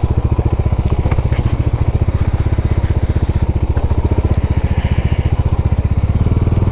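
Motorcycle engine running at steady low revs with an even, rapid pulsing beat, as the bike picks its way over a rough off-road track.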